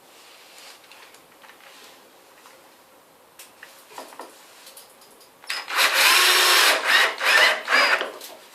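Cordless drill-driver driving a screw to fix the new hinge to the door. It starts about five and a half seconds in and runs for about three seconds, its motor whine rising and falling as the speed changes. Before it come light clicks and taps of the hinge and screws being handled.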